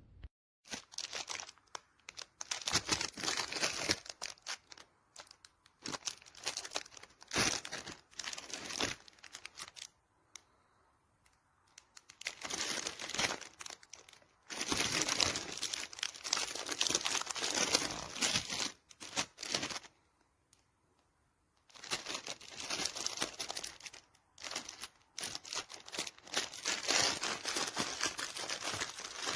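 Crinkly wrapping being crumpled and handled, in irregular spells of rustling with two short pauses, about ten and twenty seconds in.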